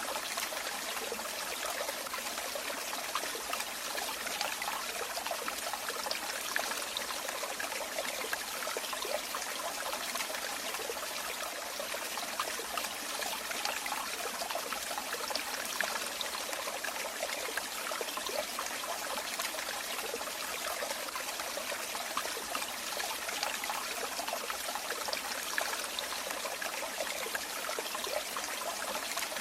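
Running water trickling and splashing steadily, with small flickering splashes.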